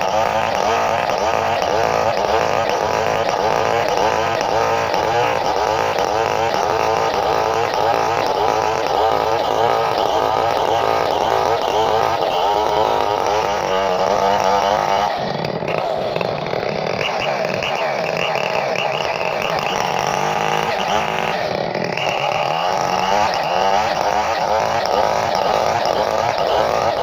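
Two-stroke chainsaw engine running continuously at high speed. Its note wavers, and it shifts about 15 seconds in and again near 21 seconds.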